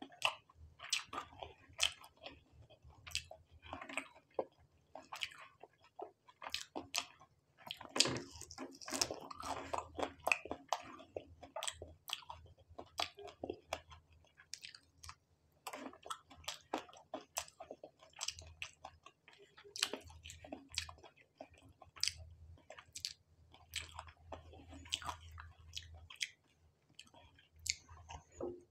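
Close-miked eating sounds: a man chewing noodles eaten by hand, with many short wet mouth smacks and clicks.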